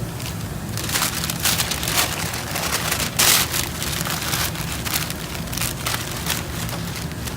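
Masking paper crinkling and rustling in irregular bursts, loudest about three seconds in, over a steady low hum.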